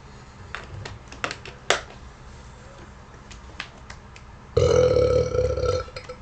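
A man's loud, pitched burp lasting just over a second, about four and a half seconds in, preceded by a few sharp clicks.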